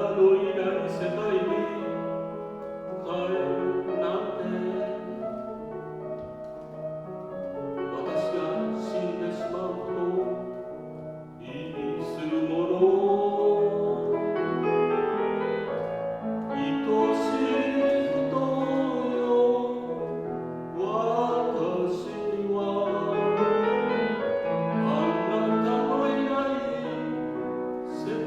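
A man singing with piano accompaniment, in long phrases of held, wavering notes over sustained piano chords.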